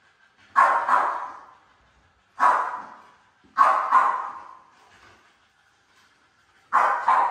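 Bully-type dogs barking: about six loud barks, some in quick pairs, each ringing on in the hard-walled kennel room.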